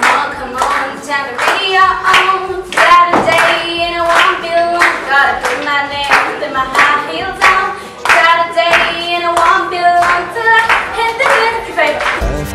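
A young woman singing an Egyptian Arabic chant into a microphone, with hand clapping keeping a steady beat of about two to three claps a second.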